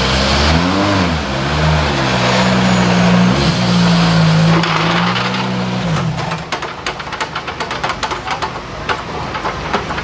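Škoda Fabia rally car's turbocharged four-cylinder engine idling with a few short throttle blips, then switched off about six seconds in. After that, a run of sharp clicks and knocks as a trolley jack is worked under the front of the car.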